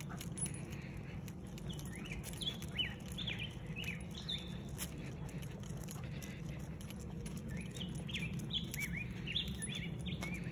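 A songbird singing two runs of quick chirps, about two seconds in and again around eight seconds in, over a steady low rumble, with a few light clicks.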